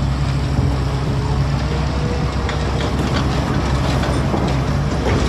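Heavy diesel engine of construction machinery running steadily, a low drone with a few faint clanks over it.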